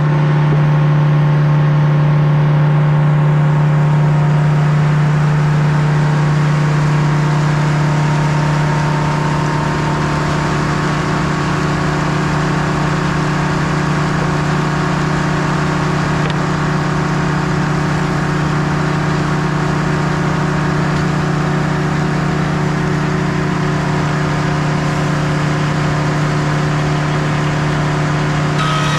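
Engine of a portable sawmill running at a steady speed while it saws a log.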